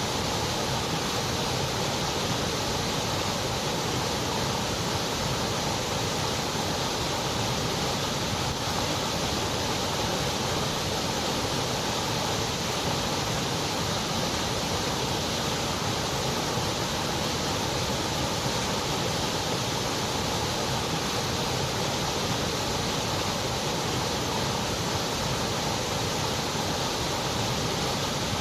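Continuous white noise: a steady, even hiss with no changes or breaks.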